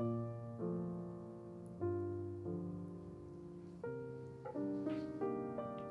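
Background piano music: slow chords, each struck and then fading, with a new chord every half second to a second.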